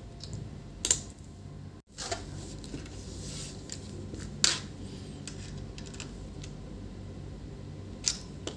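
A few sharp clicks and light knocks from a precision screwdriver working a screw in the metal display hinge of an Acer TravelMate laptop while the hinge is handled, over a steady low hum. The clicks come about a second in, in the middle and twice near the end.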